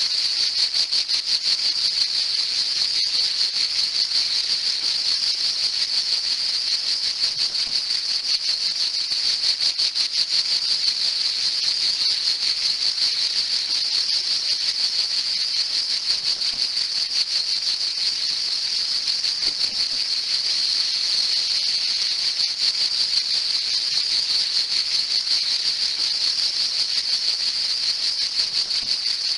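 Cicadas singing: a steady, high, rapidly pulsing buzz that keeps on without a break.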